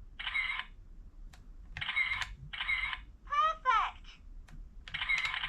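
VTech Swipe & Discover toy phone playing a series of short electronic sound effects and voice clips, each set off in turn, with a quick sliding pitched sound about three and a half seconds in. Sharp clicks of its buttons come between the sounds.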